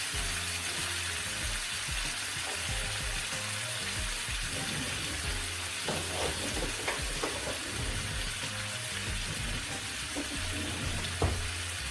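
Beef sirloin searing in a hot pot on high heat: a steady sizzle, with a few short knocks, the sharpest near the end.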